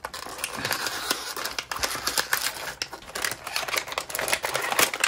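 Cardboard box being opened by hand and a plastic-wrapped puzzle cube slid out of it: continuous rustling and scraping with many small crinkles and clicks.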